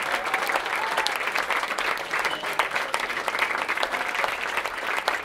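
Audience applause: many hands clapping steadily, with a few voices heard faintly over it.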